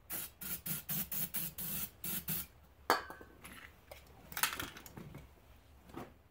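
Aerosol can of starter fluid sprayed in about eight quick hissing bursts into the gap between a lawn tractor tire's bead and its rim, the fuel charge for popping the bead back on. A sharp knock follows a moment later, then a little handling noise.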